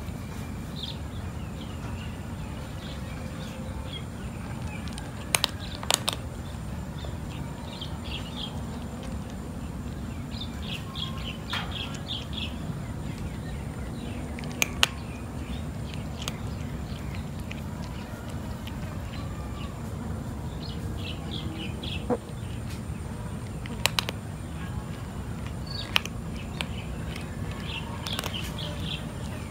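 Cat eating dry kibble, with a few sharp, separate crunches spread through the stretch. Birds chirp now and then in the background over a steady low rumble.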